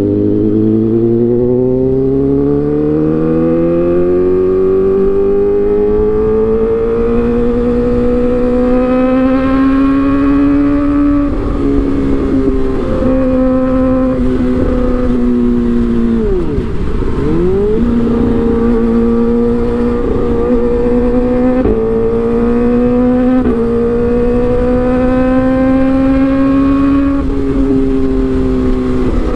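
Kawasaki ZX-25R inline-four engine breathing through an Arrow exhaust. Its note climbs steadily in pitch for about ten seconds, then holds high and steady, with several brief dips and one deeper drop and recovery midway.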